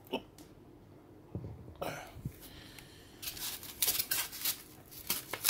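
Handling noise from the pump and its styrofoam packing: a few knocks early on, then from about halfway a run of quick rubbing, squeaky scrapes as the styrofoam block is worked against the pump body.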